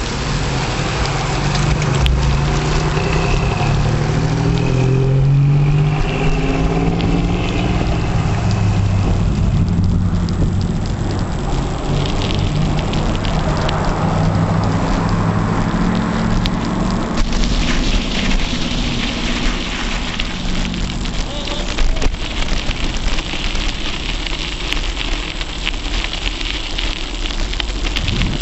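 Rushing wind and rolling-tyre noise on a camera taped to a bicycle's handlebars, with a car engine accelerating ahead, rising in pitch over the first few seconds and fading away by about 20 seconds in.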